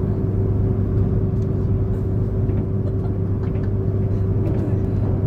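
Cabin noise of a Komachi mini-shinkansen train running at speed: a steady rumble of wheels on rail with a constant low hum and a fainter steady higher tone, heard from inside the carriage.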